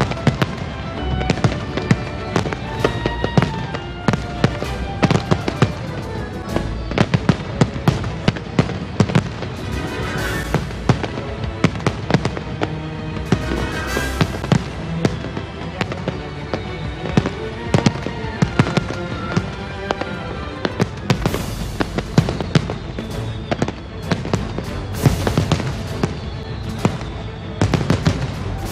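Aerial firework shells bursting in quick succession, many sharp bangs and crackles, over music.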